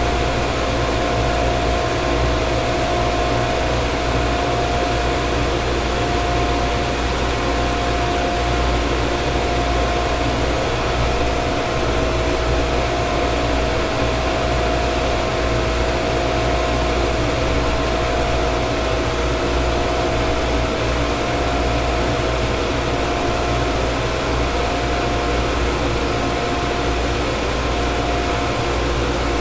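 Many pumps running together in a machinery room: a loud, steady mechanical drone with a deep hum and a constant mid-pitched whine over it.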